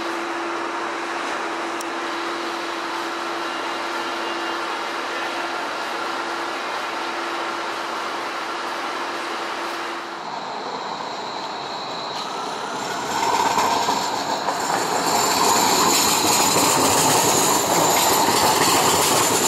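Portland Streetcar tram passing close on its rails: a rising electric whine about halfway in, then a louder run-by with high whining and squealing tones. Before it, a steady hum with one low steady tone.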